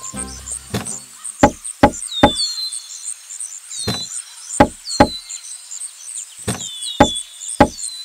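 Hammer knocking on wood in quick groups of two or three strokes, nine in all, over faint high chirping in the background.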